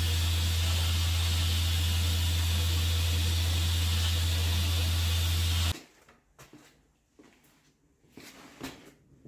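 A machine runs with a steady low hum and a loud even hiss, then cuts off abruptly a little over halfway through. Faint scattered knocks and handling sounds follow.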